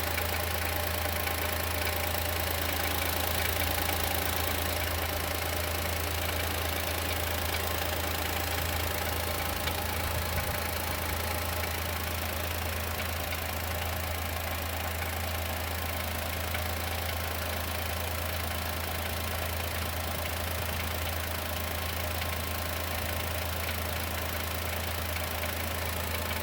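Chevrolet Onix's naturally aspirated engine idling steadily with a persistent knocking from inside it, which the owner suspects is a piston pin or a valve lifter (tappet).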